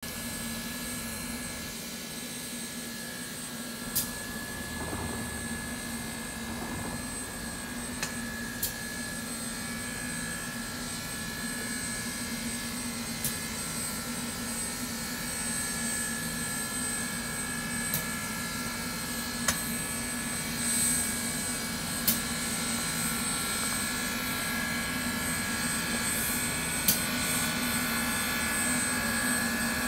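Standing steam locomotive No. 148 under steam: a steady hiss and hum with a few steady tones, slowly growing louder, broken by a sharp click every few seconds.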